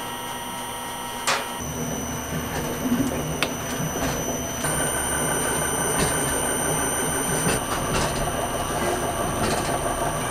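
Food-production extruder and conveyor machinery running: a steady mechanical hum with occasional sharp clicks, shifting in tone about a second and a half in and again around halfway.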